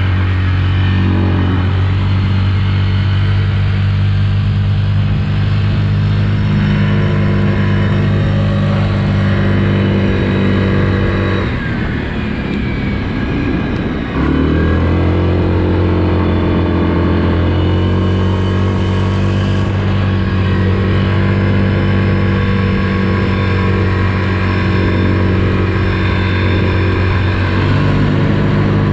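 Yamaha Grizzly ATV's single-cylinder engine running hard at speed, steady and loud. About twelve seconds in it dips for a couple of seconds, then picks up again with a rising pitch.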